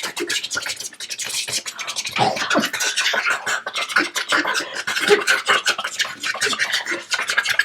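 A person making improvised beatbox-style mouth sound effects: a rapid, irregular stream of clicks, scratchy hisses and short pitched squeaks.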